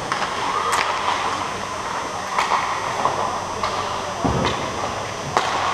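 Ice hockey rink ambience: a steady hubbub of voices and skating, broken by sharp clacks about five times and a low thud about four seconds in.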